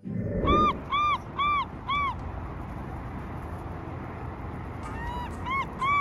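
Crows cawing in runs of evenly spaced, arched calls: four about half a second apart, then a pause, then another run of about five near the end, over a steady background rumble.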